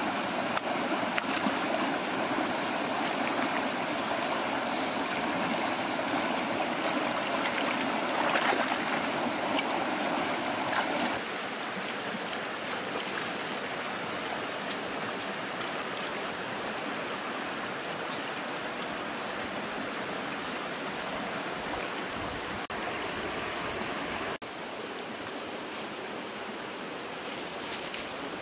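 Shallow rocky forest stream flowing over stones: a steady rush of water, with a few light clicks in the first ten seconds or so. The water noise drops a little in level about eleven seconds in and again near the end.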